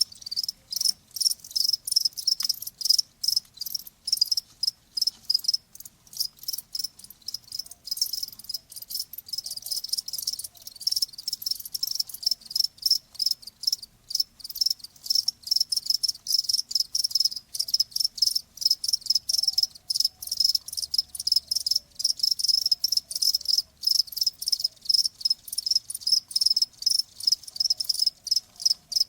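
Crickets chirping steadily, a fast even train of high-pitched chirps repeating several times a second.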